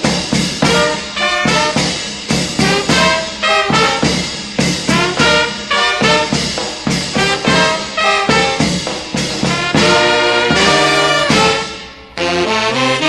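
Brass band with cornets playing a lively tune in quick, short notes. A few longer held notes come about ten seconds in, then a brief drop near twelve seconds before lower notes enter.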